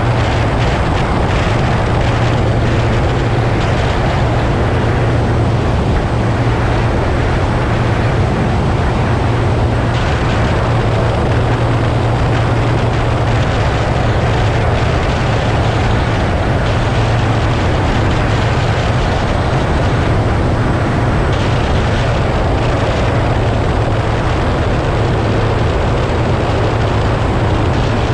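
Twin Mercury 225 outboard motors running steadily with the boat under way, a constant low drone, over a steady rush of wind and water.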